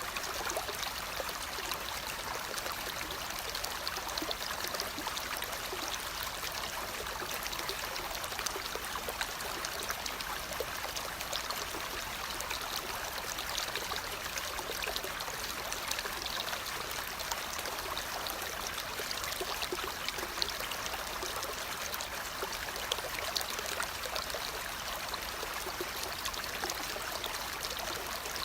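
Running water, a steady trickling stream with fine crackles and splashes throughout.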